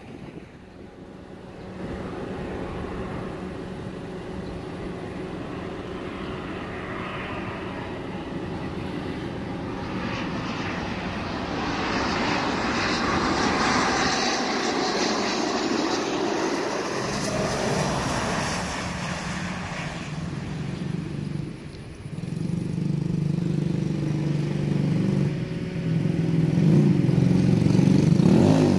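Business jet's turbofan engines on landing approach: a rushing jet noise that swells to a peak about halfway through as the aircraft passes, then fades. A louder, deeper rumble builds again over the last several seconds.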